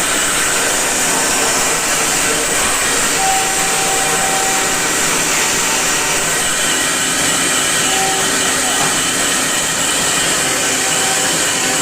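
A woodworking power tool running steadily with a loud, even whir, with faint tones that come and go.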